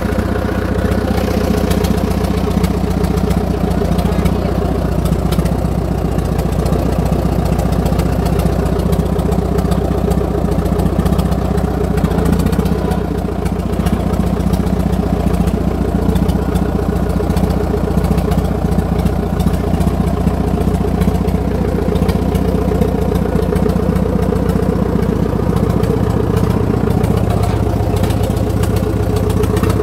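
Ford Major tractor engine running steadily as the tractor descends a slope slowly in low gear.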